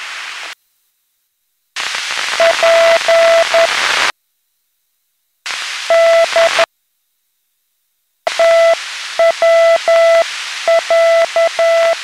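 Morse code: a steady mid-pitched beep keyed on and off in short and long elements, sent over loud shortwave radio static hiss. The hiss cuts out abruptly to silence three times, and the Morse begins about two and a half seconds in.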